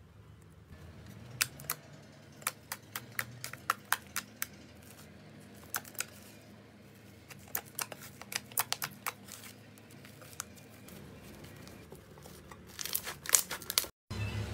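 Slime being squeezed and stretched by hand, giving a scattered run of sharp little pops and crackles, with a denser flurry near the end.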